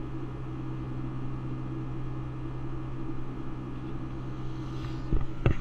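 Steady cabin drone of a Boeing 757-200 in its climb after takeoff, heard from a window seat by the engine, with a constant low hum under the engine noise. A few knocks and rubs come near the end.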